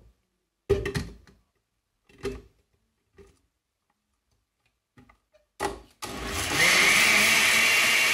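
A few clunks as the glass blender jar is lidded and seated on an Oster blender base. About six seconds in, the blender motor starts and runs steadily with a whine, churning a thick mixture of cooked pasta and milk that is too thick to blend completely.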